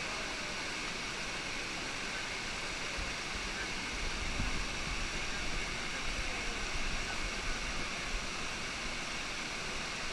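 Waterfall's steady rush of falling, churning water.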